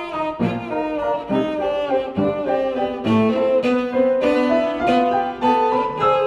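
Cello played with the bow, accompanied by a grand piano: a quick melody of short notes changing several times a second over struck piano chords.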